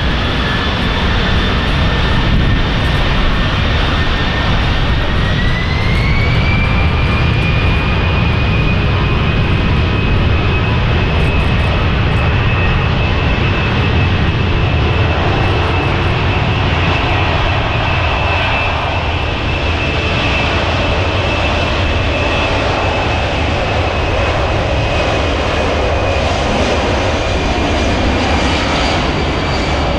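Four Pratt & Whitney F117 turbofans of a Boeing C-17A Globemaster III running at high power in reverse thrust to back the aircraft up, a loud steady roar. A high whine climbs in pitch about six seconds in, then holds.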